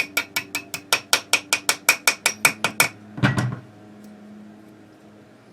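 A quick, even run of about sixteen light metallic taps, roughly five a second, then one heavier knock. It is a mallet tapping rifle parts as the ejector is driven into place in a TM22 .22 rifle.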